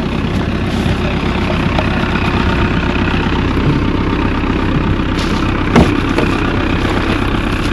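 A vehicle engine idling steadily, with one sharp knock about six seconds in.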